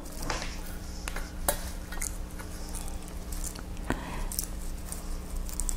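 Small paper tea sachets being handled and put into a small metal tin: light rustling with scattered soft clicks and taps against the tin, over a faint steady hum.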